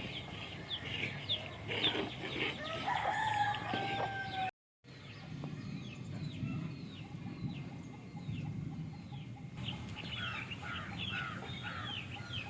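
A rooster crowing once, drawn out, about three seconds in, with small birds chirping repeatedly and short clucking calls from chickens near the end. The audio cuts out briefly just after the crow.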